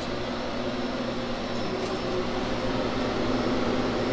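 Refrigeration evaporator unit's fans running: a steady whir of moving air with a low, even electric motor hum.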